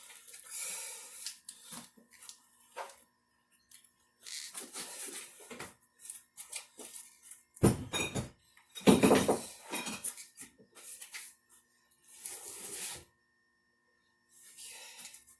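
Irregular metal clinks and clanks of hand tools and engine parts being handled, with a few heavier knocks about eight and nine seconds in.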